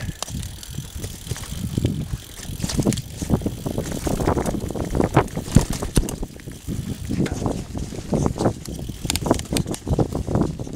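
Mountain bike riding fast over a rough dirt trail covered in dry leaves: a steady rumble of tyres on the ground, broken by many irregular sharp knocks and rattles as the bike jolts over bumps.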